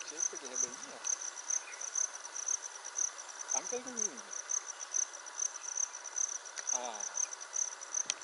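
An insect chirping in a high-pitched, even pulse, about three chirps a second.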